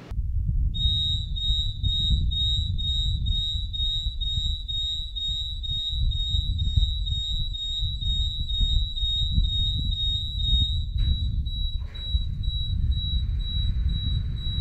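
High-pitched electronic warning alarm on a Rail-Veyor mine railcar system, a steady shrill tone pulsing a few times a second, over a steady low rumble. It is the warning that the remotely started train is moving on the track. Two short knocks sound near the end, as the alarm's pattern changes.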